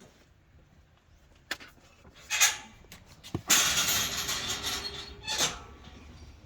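A gate being opened: a few sharp knocks, a short rattle, then a loud scraping rush lasting over a second and one more brief rattle.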